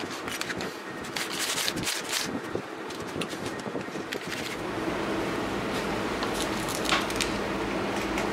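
Clicks, rattles and scraping as a sanding belt is handled and fitted onto a homemade belt-sander attachment on an angle grinder. About halfway through, a steady low machine hum sets in.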